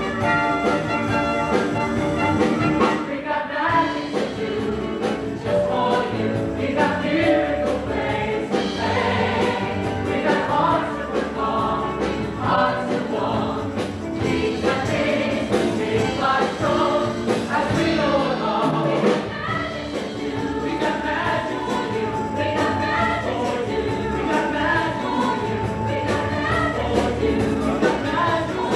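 Musical-theatre ensemble singing together over instrumental accompaniment in a live stage number. It opens on a held chord, then the voices move through short sung phrases, with one long held note in the second half.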